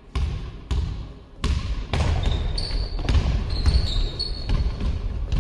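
A basketball bouncing on a sports hall floor, about one to two sharp bounces a second, each echoing in the hall. In the middle, shoes squeak briefly on the court several times.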